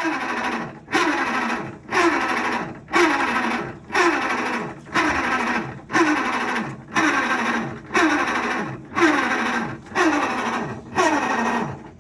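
Maytag MVWC415EW2 top-load washer running and making a loud noise that repeats about once a second, each one starting abruptly and falling in pitch as it fades. This is the abnormal noise that points to a fault in the washer's drive underneath.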